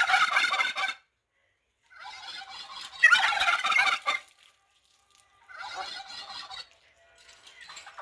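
Domestic turkey toms gobbling: repeated rattling gobbles about a second long with short gaps between them, the bouts a few seconds in loudest and a later one fainter.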